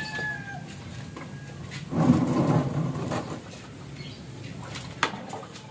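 Woven bamboo drying racks being carried and stacked: a loud rustling, scraping burst about two seconds in and two sharp knocks near the end. A bird calls faintly at the start.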